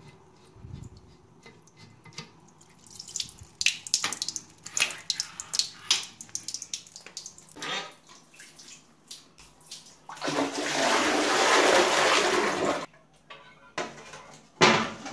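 Water gushing out of a full ceramic toilet cistern into the bowl as the tank is lifted off, a steady splash lasting about two and a half seconds, once its mounting nuts have been loosened. Before it come scattered light clicks and knocks as the tank is worked loose, and a single sharp knock follows near the end.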